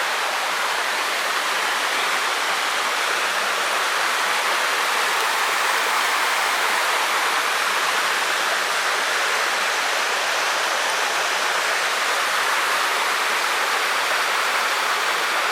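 Small waterfall: water spilling down over a rocky hillside and splashing into a pool, a steady, even rush.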